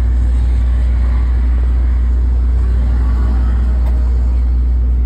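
Loud, steady low motor hum that does not change, with faint background noise above it.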